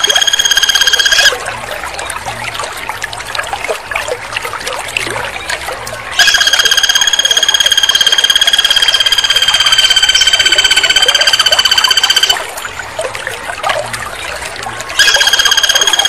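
Flameback woodpecker giving long, rapid rattling trills at one steady pitch. One trill ends about a second in, a second runs for about six seconds from the middle, and a third starts near the end.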